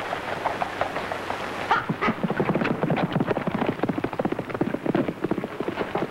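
Horse galloping, a rapid clatter of hoofbeats on a dirt street.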